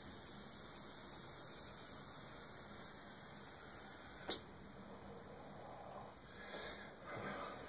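A long draw on a rebuildable vape atomizer with a dual-wick ribbon kanthal coil: a soft airy hiss with a thin, high steady tone, loudest at the start and fading. A click about four seconds in, then a faint breathy exhale of vapor near the end.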